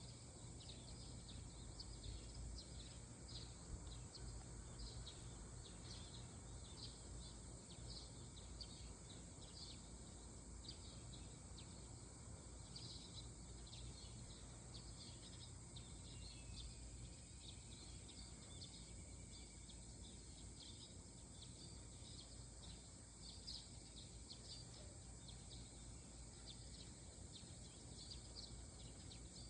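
Birds chirping, many short calls coming irregularly, faint over a steady low hum of early-morning harbour ambience.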